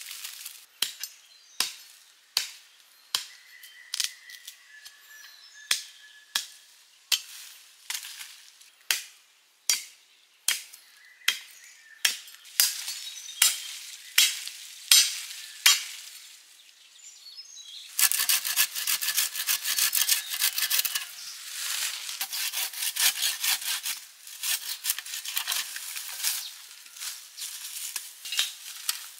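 A steady run of sharp knocks, about three every two seconds, for roughly the first sixteen seconds. About eighteen seconds in, a dense crackling rustle takes over, louder than the knocks.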